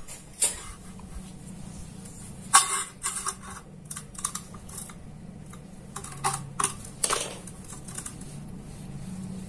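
Scattered light clicks and scrapes of a steel ruler being set down and slid along a rectangular steel tube by gloved hands, with sharper knocks about two and a half seconds in and a longer scrape about seven seconds in.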